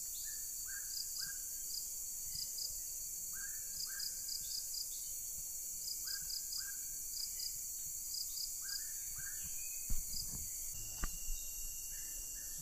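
A steady, high-pitched chorus of insects, with a bird repeating short calls in groups of two or three. There is a single thump about ten seconds in.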